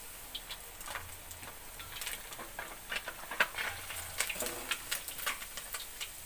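Catfish frying in hot oil in a steel wok: the oil sizzling with a steady hiss and many scattered sharp crackles and pops, with a metal spatula working against the wok as a fish is lifted out.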